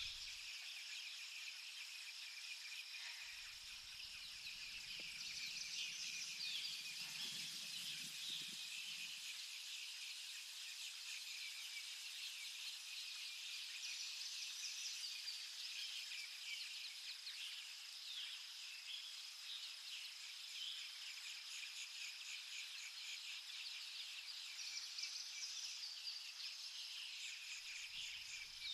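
A faint, steady chorus of insects chirring in a continuous high-pitched drone, with a few louder flurries of chirping.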